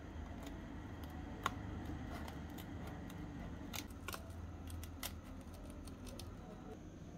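Small knife sawing through a miniature brownie's crisp baked crust, with a few sharp clicks and crackles as the blade cuts. The loudest click comes about a second and a half in, and more follow around four and five seconds in, over a low steady hum.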